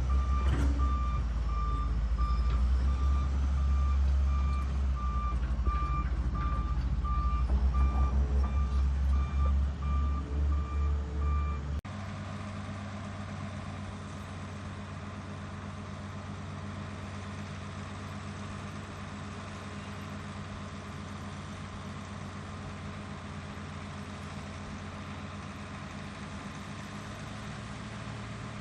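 Heavy construction machine's diesel engine running loud and deep with a reverse alarm beeping at an even rate. About twelve seconds in the sound cuts abruptly to a quieter, steady engine running with no beeping.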